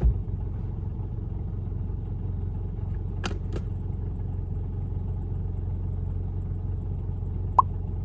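Car engine idling, heard from inside the cabin as a steady low hum. Two short clicks come about three seconds in, and a brief high blip comes near the end.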